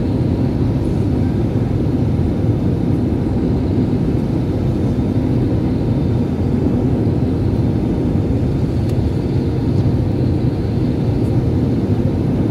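Steady low rumble of a jet airliner's engines and rushing air, heard inside the cabin on the approach to landing, with a faint steady whine above it.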